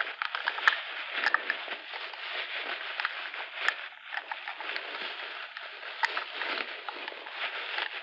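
Close crinkling and rustling of crumpled white wrapping handled around a metal combination padlock, with many small sharp clicks and taps scattered through it.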